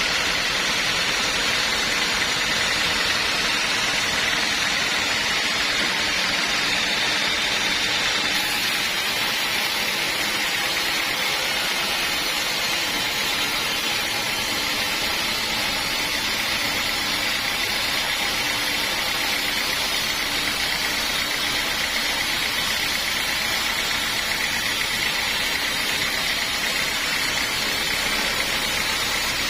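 Sawmill saw machine running with a steady, unbroken mechanical hum and hiss.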